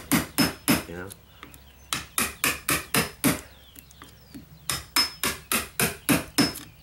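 Hammer striking a wood chisel, cutting a deadbolt pocket into a wooden door jamb: three runs of quick, sharp taps, about four a second.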